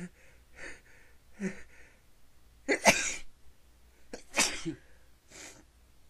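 A person sneezing: three short breaths build up to a loud sneeze about three seconds in, and a second sneeze follows about a second and a half later, then a short breath out.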